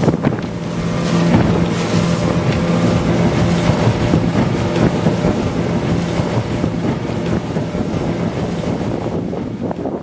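Boat engine running with a steady low drone, under a constant rush of wind and water.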